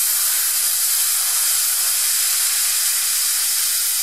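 Eastwood Versa Cut 60 air plasma cutter cutting through a grade 8 steel bolt: the torch's arc and air jet give a loud, steady hiss.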